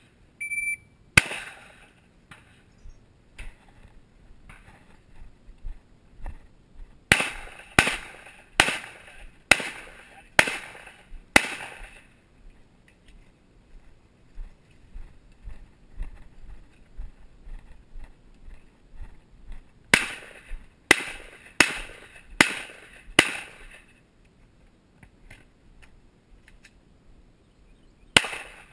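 A shot timer beeps once, then pistol shots follow: a single shot about a second later, a string of six evenly spaced shots, a long pause, then a string of five, with more shots starting near the end.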